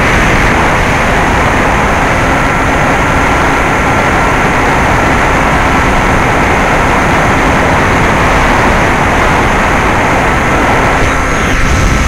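Bixler 2 RC plane's brushless electric motor (NTM 35-30A 1400kv) and propeller running at steady throttle, heard from the onboard camera: a loud rushing noise with a thin steady whine over it. The sound changes a little near the end.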